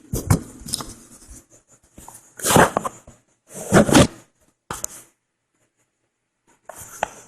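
A man with a head cold sneezing: a series of short, sharp sneezes, the loudest two about a second apart in the middle, with smaller ones before and after and a silent gap near the end.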